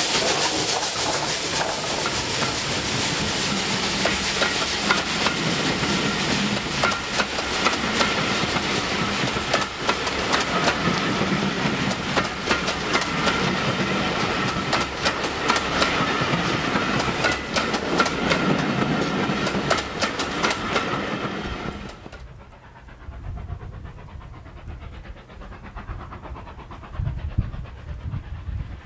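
Bulleid Battle of Britain class steam locomotive 34081 passing close with its train. A steam hiss comes first, then the coaches roll by with rapid clickety-clack of wheels over rail joints and a thin steady whine. About 22 s in, the sound cuts to a much quieter low rumble.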